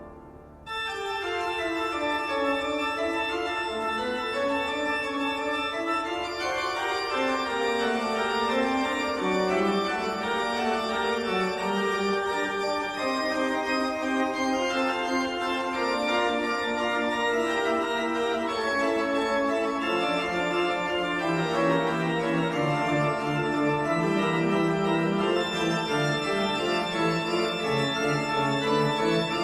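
Background music: organ playing slow held chords with a moving melody line, entering about a second in as a low rumble dies away.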